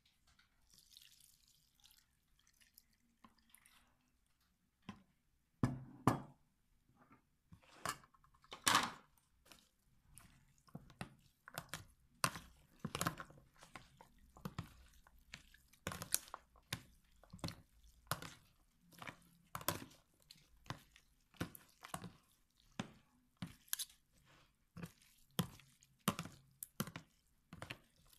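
Vinegar mixture poured faintly over shredded green papaya and carrots in a plastic tub, then a spoon tossing and mixing the wet vegetables, with repeated sharp knocks and rustles against the plastic about once a second.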